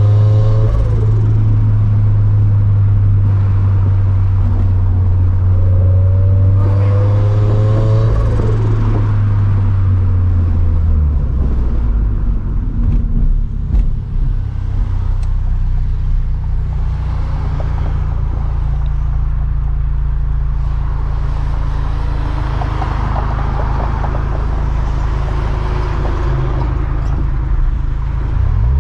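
Turbocharged 2013 Scion FR-S flat-four engine and exhaust while driving: a steady engine drone that drops to a lower note about ten seconds in. Short rising whines come near the start and again about seven seconds in.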